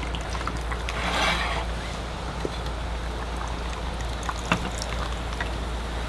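Drinks poured from aluminium cans into stainless-steel mugs, a soft pouring swell about a second in, with a few light clicks later. A steady low hum runs underneath.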